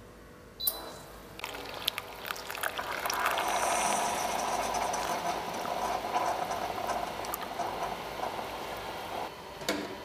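Single-serve K-Cup coffee maker brewing: after a click, hot water hisses through the pod and coffee streams steadily into the cup, with scattered clicks. Another click comes near the end.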